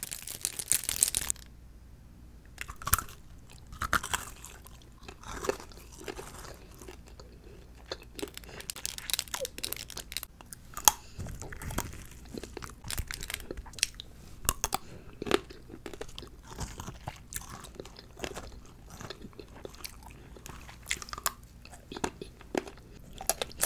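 Close-miked biting, crunching and chewing of edible fake-nail decorations, with sharp crunches coming at irregular intervals throughout.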